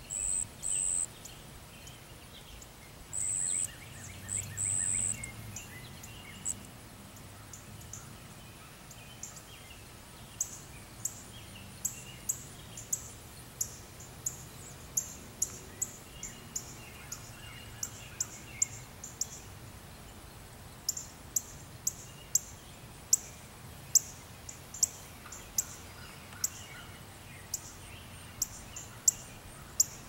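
Outdoor ambience of high-pitched chirping: a few short held chirps near the start, then a long run of brief, very high ticks roughly every half second from about a third of the way in, with faint bird calls behind.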